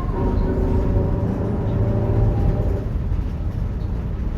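Mercedes-Benz OF-1721 city bus's rear differential whining over the low rumble of the engine and road. The whine is several steady tones that drift slightly lower and fade out about three seconds in. It is the growling differential ('diferencial roncando').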